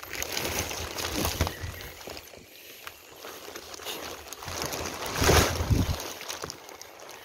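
Leafy bushes and branches rustling with handling noise as a person pushes through undergrowth, with a louder burst of rustling about five seconds in.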